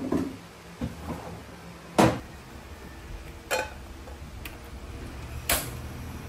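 A handful of sharp knocks and clatters, spaced about a second or more apart, the loudest about two seconds in, over a low steady hum.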